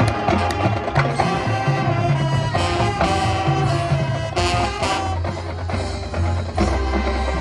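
Marching band playing its competition show: brass and wind chords over bass notes, with frequent drum and percussion hits.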